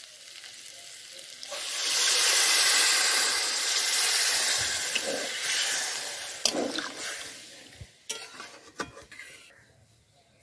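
Water poured into a hot metal kadai of fried spice paste and potatoes: a loud sizzling hiss breaks out about a second and a half in and dies away over the next several seconds as the curry is stirred. A few knocks of the steel spoon against the pan come near the end.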